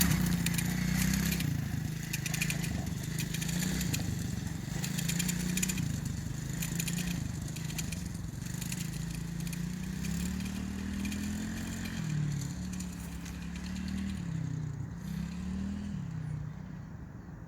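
Kids' mini ATV's 110cc four-stroke engine running under throttle, its pitch rising and falling again and again, with a crackling noise over it in the first half. It grows fainter near the end.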